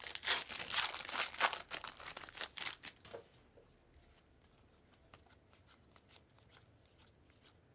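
A foil trading-card pack being torn open and crinkled for about three seconds, then faint clicks of the cards being handled.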